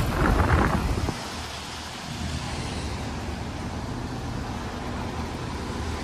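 Carrier outdoor air-conditioner condensing unit running. The fan's air rushes loudly for about the first second, heard close over the top fan grille, then it drops to a steadier, quieter hum.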